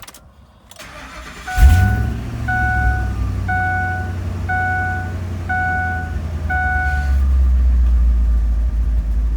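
Ford F-250's engine starting about one and a half seconds in, then idling steadily, with its spark plugs freshly re-gapped. Meanwhile a dashboard warning chime beeps six times, about once a second.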